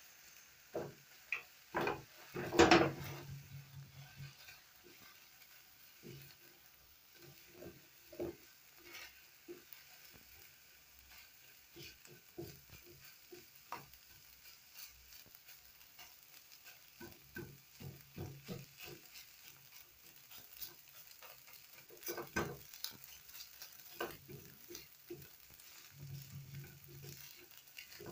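Eggs frying with a faint sizzle in a nonstick frying pan while a spatula stirs and scrapes them into scrambled egg: a run of short scraping strokes against the pan, loudest about two to three seconds in.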